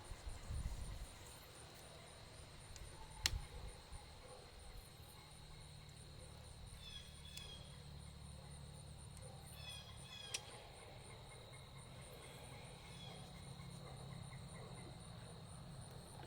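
Insects trilling steadily in the background, with a sharp click about three seconds in, another about ten seconds in, and a few short chirps.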